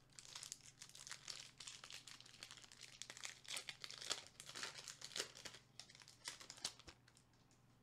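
Foil wrapper of a Pokémon trading card booster pack crinkling as it is torn open and handled by hand: a run of crisp crackles that stops about seven seconds in.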